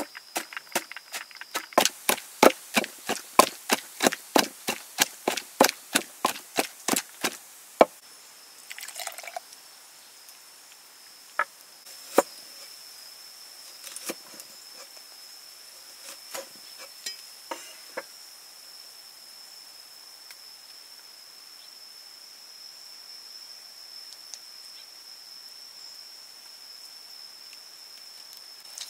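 Wooden pestle pounding garlic and chilies in a wooden mortar, about three even strikes a second, stopping about eight seconds in. After it, a few scattered knife taps on a wooden board as a lime is cut. A steady high-pitched tone runs under it all.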